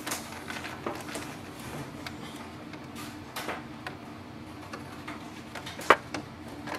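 Handling noise on the plastic housing of an Epson EcoTank printer as a screw is fitted underneath: a few faint clicks and taps, then one sharp knock about six seconds in, over a steady low hum.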